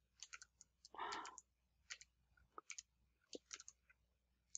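Faint, scattered clicks of a computer keyboard and mouse, about a dozen spread irregularly, with a soft puff of noise about a second in.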